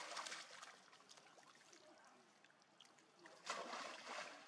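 Water splashing in two short bursts: one right at the start and one about three and a half seconds in, with faint noise between.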